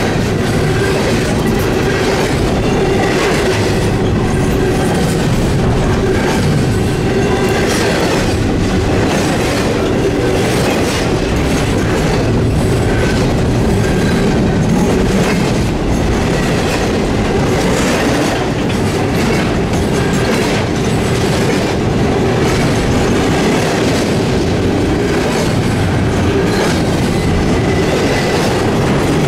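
Freight train rolling past, steel wheels clicking steadily over the rail joints, with a few brief, thin, high wheel squeals.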